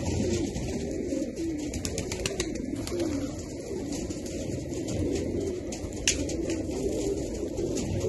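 A flock of domestic pigeons cooing continuously, many low wavering coos overlapping, with scattered light clicks and one sharper click about six seconds in.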